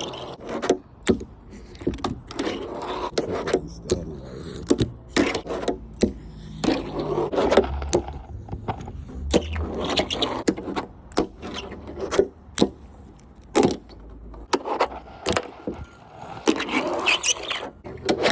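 Fingerboard being ridden and flipped: the little board's wheels rolling, with many sharp, irregular clacks as the deck pops and lands, and some scraping.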